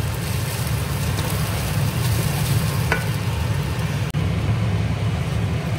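Basmati rice frying in a little oil in a pot, sizzling while a wooden spoon stirs it, over a steady low hum. The sound drops out for an instant about four seconds in.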